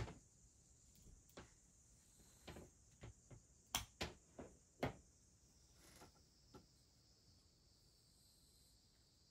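Near silence: quiet room tone with a faint steady high hiss and a few soft, scattered clicks and taps, the loudest of them bunched together about four to five seconds in.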